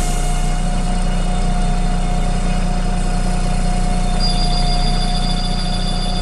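Karosa B961 bus's diesel engine idling at a stop with a steady whine over the low hum. About four seconds in, a high-pitched beeping starts: the door-closing warning.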